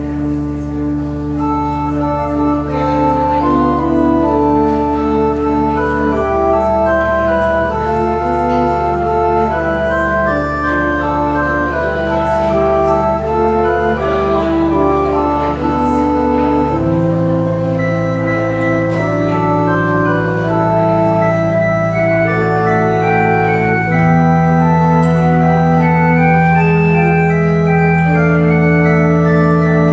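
Church organ playing slow music in chords over held bass notes. The bass notes change about two-thirds of the way in and again near the end.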